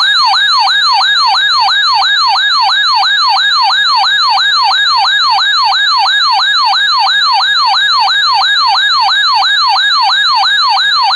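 Electronic yelp-style siren alert tone, sweeping up and down in pitch about three times a second at a steady loud level, cutting off abruptly near the end.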